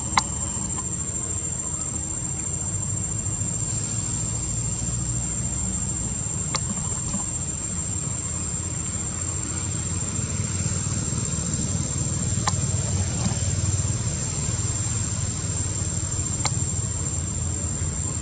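Steady low background rumble, engine-like, with a constant high-pitched whine above it and a few sharp clicks.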